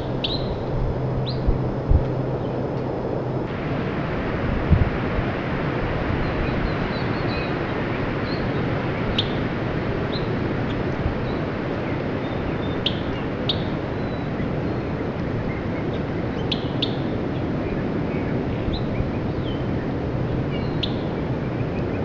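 Small songbirds giving short, high chirping call notes, scattered singly every second or two, over a steady background rush.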